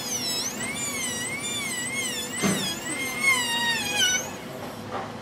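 Slow-speed dental handpiece spinning a bur at low RPM against a typodont tooth while extending a cavity preparation. Its whine wavers up and down in pitch as the bur loads and unloads, then stops about four seconds in, leaving a faint hiss.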